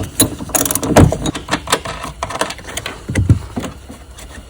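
Irregular metallic clicks and knocks from a hand tool backing off the 10 mm nut that holds a car's tail light assembly, with a dull thump a little after three seconds in.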